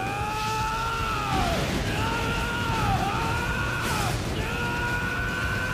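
A young man's voice-acted battle yell: a run of long held cries, each rising and falling, with short breaks between them. Underneath are a steady low rumble of explosion effects and background music.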